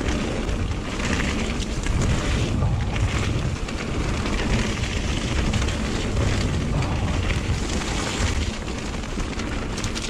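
Gusty wind buffeting a chest-mounted action camera's microphone as a steady low rumble, over the rush of a mountain bike rolling down a wet trail.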